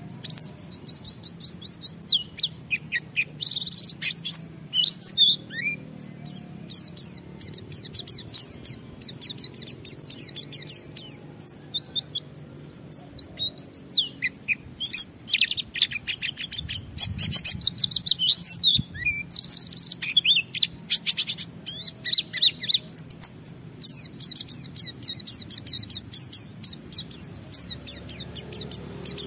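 White-eye (pleci) singing a long, unbroken stream of rapid high twittering and trilled notes. This is the continuous run-on song that keepers call ngalas.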